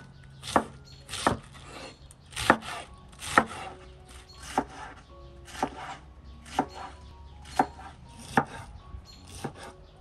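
Chef's knife chopping white cabbage on a bamboo cutting board, each stroke a crisp cut ending in a knock on the board, about one a second.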